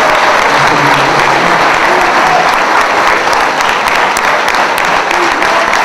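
Large audience applauding with steady, sustained clapping.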